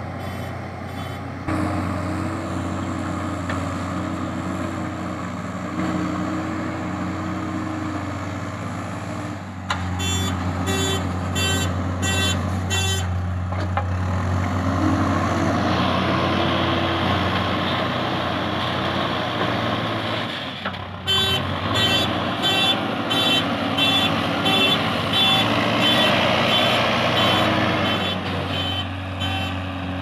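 JCB backhoe loader's diesel engine running steadily, its pitch and load rising about halfway through as the front bucket digs into the soil pile. The reversing alarm beeps about twice a second in stretches near the start, around a third of the way in, and through much of the second half.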